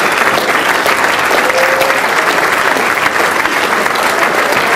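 Audience applauding steadily, a dense, even run of many hands clapping.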